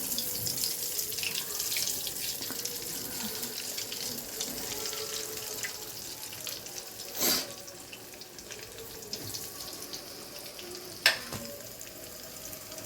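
Chicken balls deep-frying in mustard oil: a steady crackling sizzle that slowly grows quieter. There is a short swish about seven seconds in and a sharp click about eleven seconds in.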